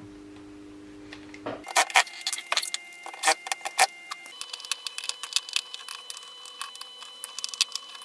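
18 V cordless-drill battery pack being taken apart by hand. From about a second and a half in comes a quick, irregular run of sharp clicks, clatters and light metallic clinks from the plastic casing, screws and tools.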